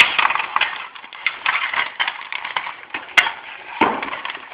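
Close handling noise: irregular scratchy rustling and light clicks as a knot is worked and slid along a bicycle helmet toward its vents, with one sharp click about three seconds in.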